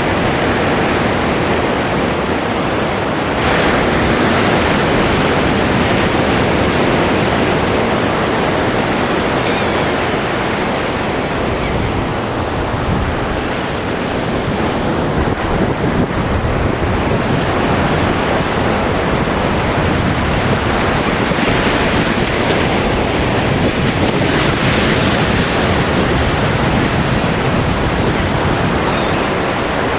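Ocean surf, a continuous rushing wash of waves that swells and ebbs. The hiss brightens sharply about three seconds in, thins out in the middle, and surges again after about twenty seconds.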